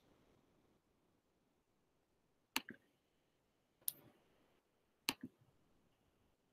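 Computer mouse button clicked three times, about a second and a quarter apart. Each sharp click is followed quickly by a softer second click.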